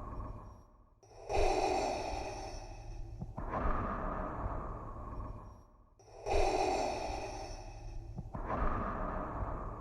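Darth Vader's respirator breathing sound effect: slow, regular mechanical hissing breaths, in and out, about two full breath cycles. Each breath starts sharply and fades over a couple of seconds.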